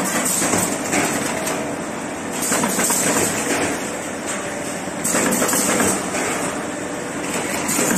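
Corrugated paperboard partition assembler machine running: a dense, steady mechanical clatter of conveyors and motors, with a high hiss that swells every two to three seconds.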